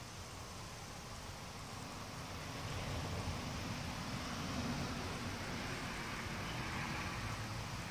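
Steady outdoor background rush with no distinct events, slowly swelling over a few seconds and easing near the end.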